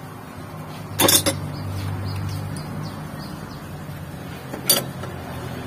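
Metal hand tools clinking against each other and the engine: a short cluster of sharp clinks about a second in and a single one near the end, over a steady low hum.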